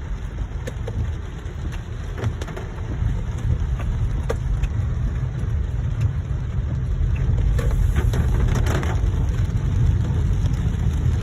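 Car cabin while driving on wet, flooded roads: a steady low road and engine rumble with scattered light ticks of water hitting the car. A hiss of water grows louder about two-thirds of the way through.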